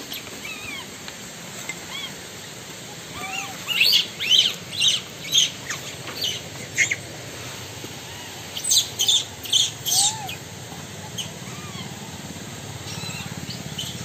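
Birds calling: short, sharp chirps in two quick runs, about four seconds in and again around nine seconds, with fainter calls between.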